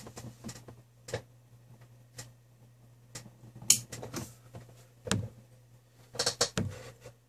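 Scattered handling clicks and light knocks at irregular intervals, with a quick cluster near the end, over a steady low hum.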